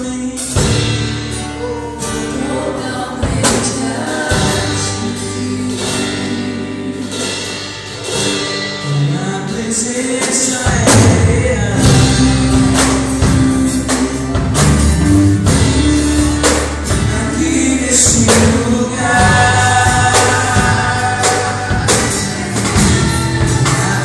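Live gospel worship band: a male lead singer and female backing singers over drum kit, acoustic guitar and electric guitar. About ten seconds in the band swells, fuller and louder with a heavier bass.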